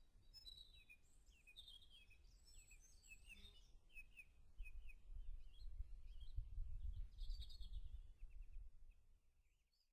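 Faint spring-morning birdsong: a bird repeating short falling chirps, with more birds joining in. A low rumble swells in the second half, and everything fades out at the end.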